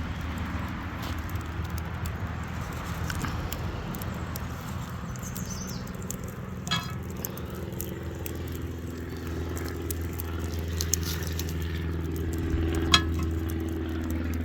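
Charcoal crackling around a cooking pot on a campfire, with two sharp metallic clinks, one about halfway through and one near the end, over a steady low hum.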